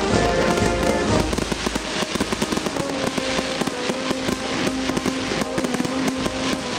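Added background music playing over crackling and popping aerial firework bursts.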